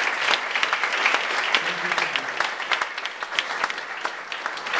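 Audience applauding: many people clapping at once, the claps overlapping in a steady, even din.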